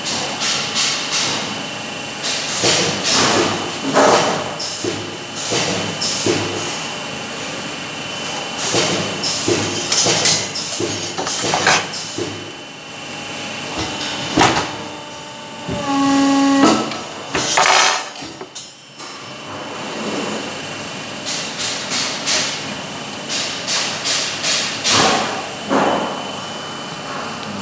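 Irregular metallic clanks and knocks of steel wire baskets being handled and set down on a workbench. A short pitched tone sounds about sixteen seconds in, followed by a louder rushing burst.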